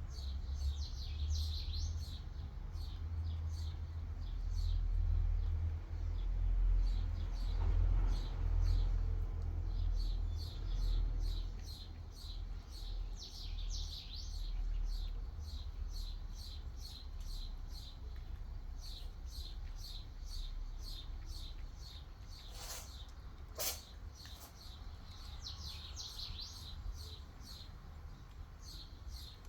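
Small birds chirping in quick, repeated high chirps, over a steady low rumble. Past the middle come two sharp, short snaps about a second apart.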